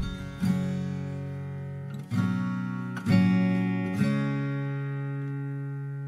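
Background instrumental music: strummed guitar chords, a few strokes roughly a second apart, the last one left ringing out.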